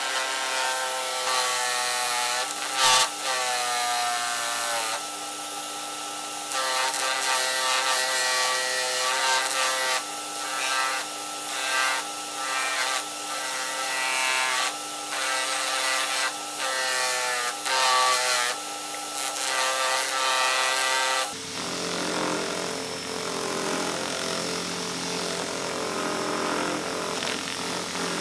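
Drill press spinning a homemade drum sander, with plywood pressed against the sandpaper drum in repeated passes: a steady motor hum under a rough sanding rasp that comes and goes as the wood touches the drum. The tone of the running changes abruptly about three-quarters of the way through.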